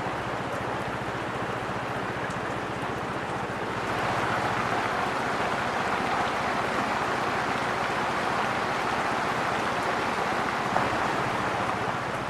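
Steady rain, growing heavier about four seconds in, over a faint low steady hum.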